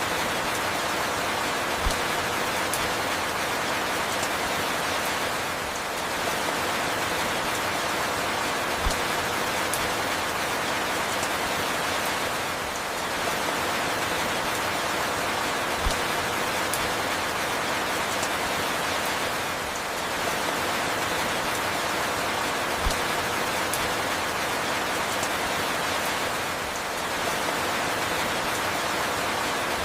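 Steady falling rain, an even hiss, with a soft low thump about every seven seconds.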